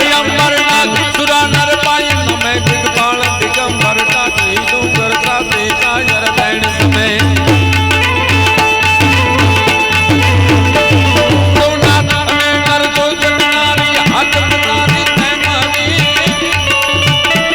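Live Indian folk-devotional music: tabla drumming under a melody of long held notes, with no singing voice standing out.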